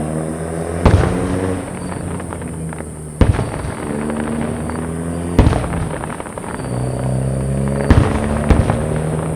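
Aerial fireworks shells bursting: about six sharp bangs with short echoing tails, a few seconds apart at first and then closer together near the end. Underneath runs a steady low droning hum that slowly rises and falls in pitch.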